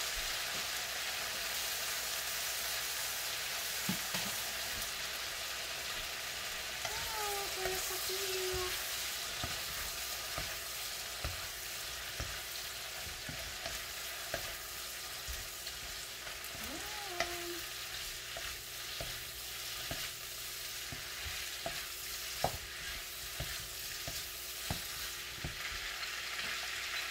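Sliced bitter melon (ampalaya) sautéing in hot oil in a pan: a steady sizzle, with the spatula clicking and scraping against the pan as it is stirred.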